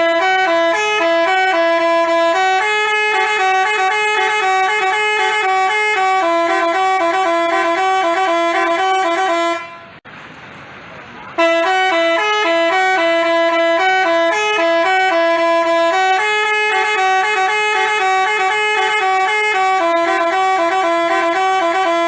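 Telolet basuri musical bus horn playing a stepped tune of held and quickly alternating notes. It breaks off for about a second and a half near the middle, then plays the same tune again.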